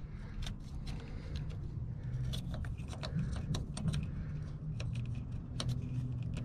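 Hands working a hose clip and plastic electrical connector onto the hoses of a truck's EVAP canister: scattered small clicks, taps and scrapes, irregular, over a low steady hum.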